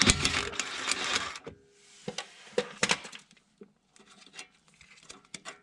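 Impact wrench running for about a second and a half on a 12 mm brake hose retainer bolt, breaking it loose, followed by scattered light clicks and taps as the bolt is worked out.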